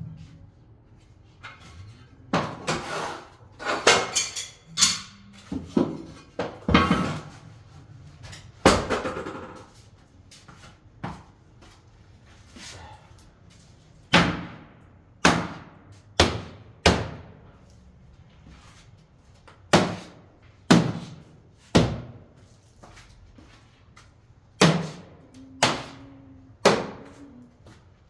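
A run of sharp hammer strikes during tile work, irregular at first, then spaced about a second apart in groups of three or four, each ringing out briefly.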